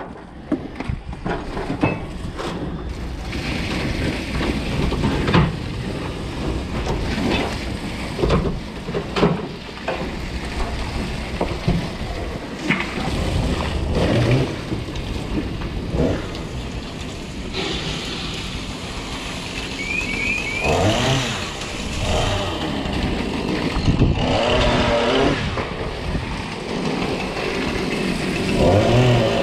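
Fire hose spraying water onto charred wooden garden sheds, a steady rush of water with scattered knocks and clatter. The firefighters are dousing the burnt remains to cool them after the fire.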